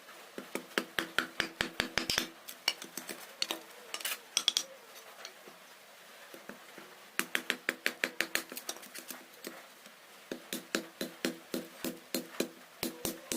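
Quick light taps on bamboo, about five or six a second, in several runs with short pauses between.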